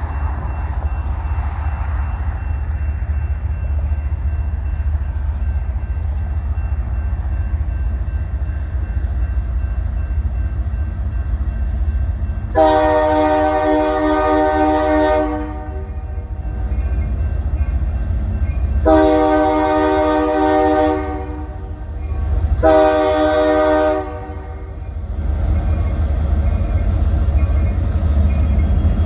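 Freight locomotive's multi-chime air horn sounding the grade-crossing pattern: two long blasts and a short one, with the final long blast starting near the end, over a steady low rumble of the approaching train.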